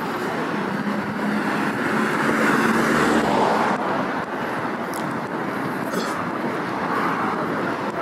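City street noise with a car passing close by, swelling to its loudest about three seconds in and dropping off suddenly just before four seconds.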